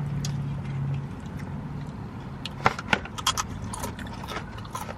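Low steady hum, then a short cluster of sharp clicks and light rattles about two and a half to three and a half seconds in, as small hard objects are handled.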